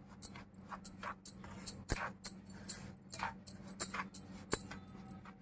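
A wooden spatula scraping and stirring semolina in a non-stick pan, quick irregular strokes about four a second, as the semolina is lightly roasted to take away its rawness.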